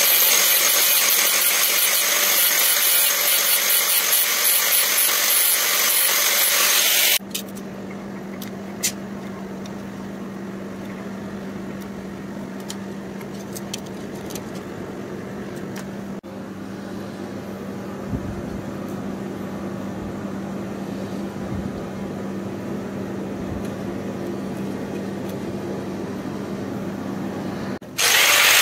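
Power tools working a steel sword blade made from a leaf spring: a loud hiss for about seven seconds, then a quieter stretch with a steady motor hum, and the loud hiss again near the end.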